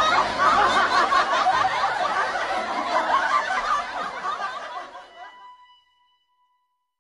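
Laughter, fading away about five seconds in and followed by silence.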